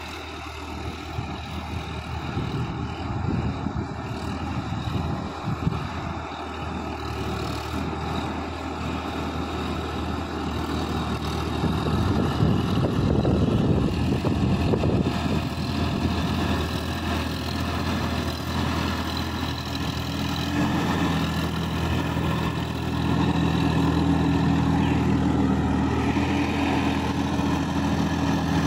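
Tractor diesel engine running under load while it tills a flooded paddy field with a rotary tiller, growing louder as it comes closer.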